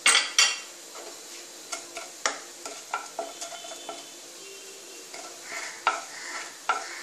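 Wooden spatula stirring mustard seeds in a little hot oil in a nonstick pan, with irregular scraping clicks and taps against the pan and a faint sizzle as the oil heats. The loudest knocks come in the first half-second.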